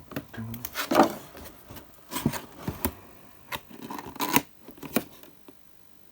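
Cardboard box and plastic packaging of a boxed die-cast model car being handled: irregular scraping, rustling and sharp clicks as the packaging is worked out of the box, stopping about a second before the end.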